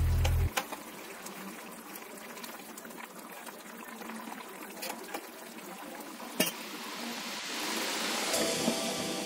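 Metal ladle stirring thick brinjal curry in a pan, with a few sharp clinks against the pan. About three-quarters of the way through, tamarind juice is poured in from a glass bowl, a rising wash of pouring liquid.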